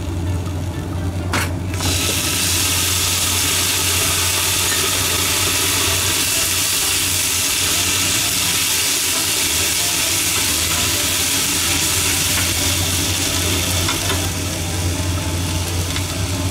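Shishito peppers and chikuwa sizzling in a frying pan as cooking sake hits the hot oil: the hiss jumps up about two seconds in, holds steady while being stirred with chopsticks, and eases off near the end. A steady low hum runs underneath.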